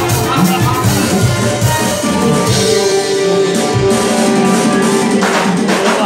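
Live band playing upbeat amplified dance music, with an electric bass guitar carrying a strong bass line under an even beat.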